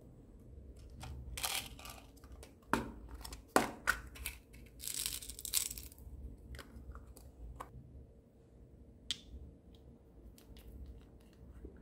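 Small plastic containers handled and beads and sprinkles poured into a glass dish of slime: scattered clicks and knocks, with a crackly rustling pour about five seconds in and a single sharp click near the end.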